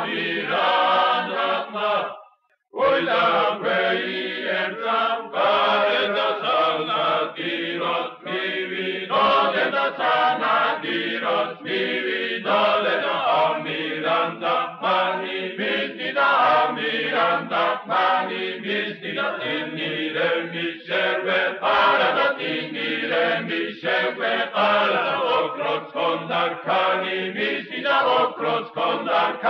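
Choral chanting: several voices singing together over a held low note, breaking off briefly about two and a half seconds in.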